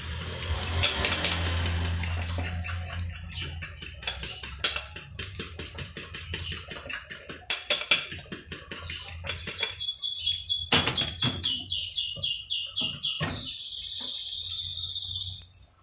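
A fork beating eggs in a bowl: rapid, steady clicking strokes, about five a second, that keep the beaten eggs airy so they don't deflate. The beating stops about 13 seconds in, and a faint high hiss is heard over the last few seconds.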